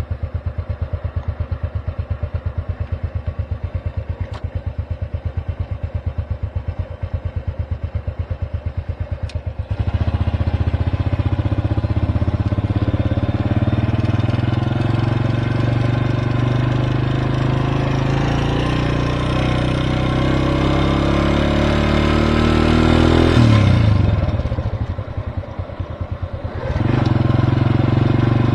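Motorcycle engine idling with a rapid, even putter, then pulling away about ten seconds in. The engine note climbs steadily for several seconds, drops sharply, goes quieter briefly, and picks up again near the end.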